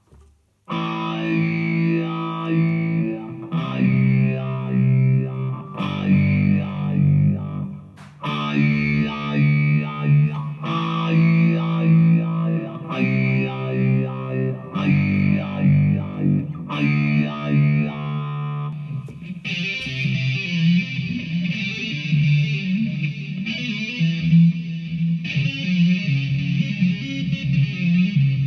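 Electric guitar played through a DigiTech GNX3 multi-effects pedal with distortion. Chords are struck and held, a new one about every two seconds. Past the middle the effect changes to a denser, fluttering sound.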